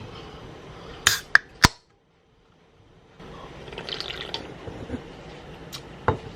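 Sharp clicks and taps with liquid and clinking sounds from a drink being handled. The sound drops out completely for about a second and a half partway through.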